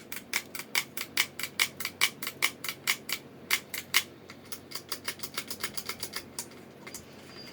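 A switch on a Heathkit HM-2102 meter being clicked back and forth over and over, about five clicks a second. There is a short pause about three seconds in, then lighter, quicker clicks. The switch is being exercised to free it up after contact cleaning.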